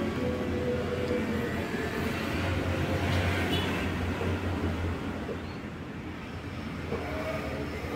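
Low rumble of a motor vehicle engine running close by, swelling in the middle and then easing off.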